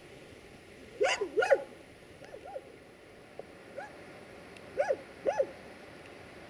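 Dog barking in short pairs of barks. The loudest pair comes about a second in, fainter barks follow, and another clear pair comes near the end.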